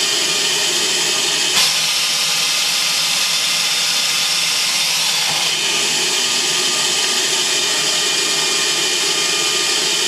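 100,000 RPM fan running steadily at about half speed with its plenum off, a loud airy hiss strong in the highs with thin whining tones in it. A single short knock about a second and a half in.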